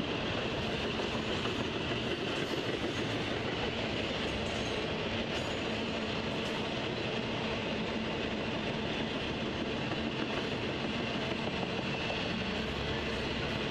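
Intermodal freight train, its flatcars loaded with highway trailers and containers, rolling steadily past: a continuous rumble and rattle of wheels on the rails that holds an even level throughout.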